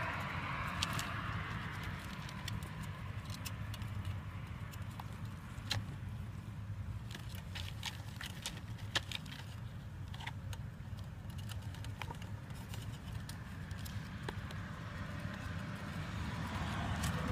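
Scattered light clicks and rustles from pet rats scrabbling in a plastic carrier of shredded paper bedding, over a steady low rumble.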